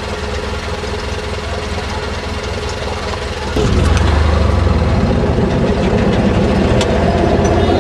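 Little ride-on train's engine idling with a knocking pulse, then running noticeably louder from about three and a half seconds in as the train gets under way.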